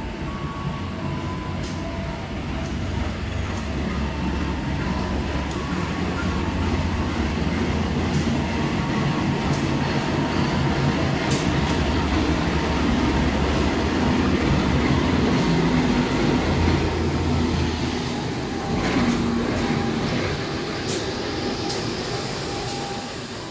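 Locomotive-hauled passenger train pulling into a station: a steady low engine rumble, wheels clicking over rail joints, and a thin high squeal on and off as it slows. It grows louder to a peak about two thirds of the way through, then eases.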